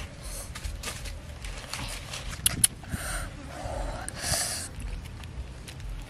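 Hands handling freshly grilled fish and the leaves and bamboo sticks around it: short rustles and scrapes, with two sharp clicks about two and a half seconds in, over a low steady rumble.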